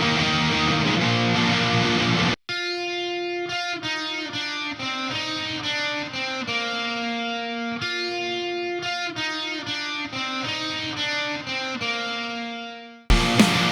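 Eastcoast TM HH electric guitar being played: dense distorted playing for about two seconds that cuts off suddenly, then clean-toned single notes picked in a slow melodic line that fades out, and loud distorted chugging kicks in near the end.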